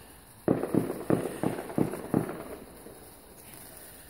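A firework going off in a quick run of about six sharp pops, roughly three a second, getting slightly weaker toward the end.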